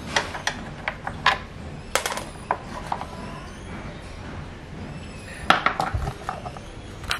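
Scattered clicks and knocks of hard plastic and metal as the front sprocket cover of a KTM RC 390 is unclipped and lifted off. A quick cluster of clicks comes about five and a half seconds in.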